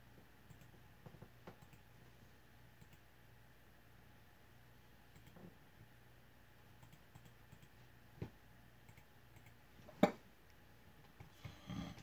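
Quiet room tone with a faint low hum and scattered light clicks; a sharper click comes about ten seconds in, and a brief scuffing noise near the end.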